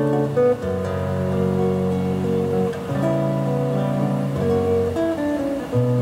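Acoustic guitar played solo, ringing chords that change every second or so.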